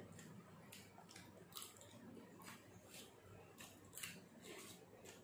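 Faint crunching and chewing of crisp papad being bitten and eaten, a series of short, irregular crackles.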